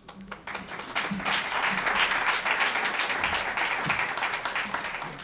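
Audience applauding. The clapping swells about a second in and tails off near the end.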